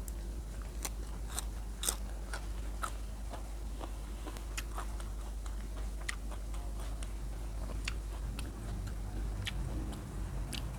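Close-miked chewing of crunchy food: irregular crisp crunches and clicks from the mouth, several a second.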